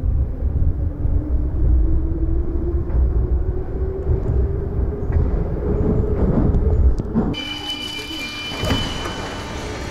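Metro train pulling out of a station, heard from inside the carriage: a deep rumble of wheels on rails with a whine that rises slowly as the train speeds up. About seven seconds in the sound changes abruptly to a hissing run through the tunnel with a high steady squeal.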